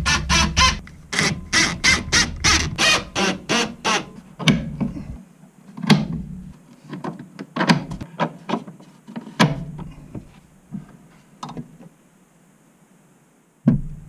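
Wooden cabinet lid and its gas struts being handled: a quick run of rattling clicks, about four a second, for the first few seconds, then scattered knocks and thunks as the lid is moved on its struts.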